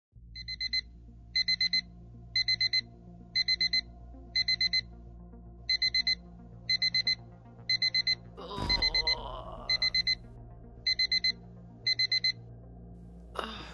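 Electronic alarm beeping in quick bursts of four, about one burst a second, over a low steady hum; the beeping stops about twelve seconds in. A brief rushing whoosh cuts across it about eight and a half seconds in.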